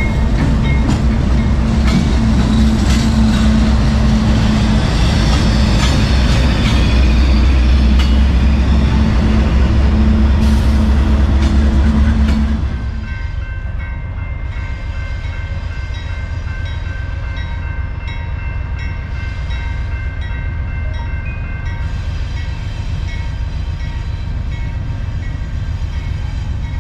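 Diesel locomotives passing, engines running with a loud, deep steady drone. About 13 seconds in it cuts suddenly to a quieter steady locomotive rumble with a faint thin whine over it.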